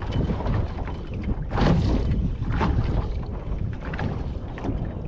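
Wind buffeting the microphone aboard a sailboat under way, over a constant deep rumble, with irregular rushing surges of wind and water. The strongest surge comes about a second and a half in.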